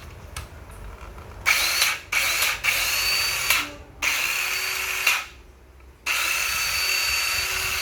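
12-volt cordless mini wood saw switched on in short bursts for a test: its motor spins up with a rising whine five times, starting about a second and a half in, the last run lasting several seconds.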